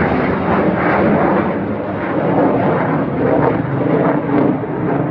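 Loud, steady roar of a fighter jet's engines as it flies overhead.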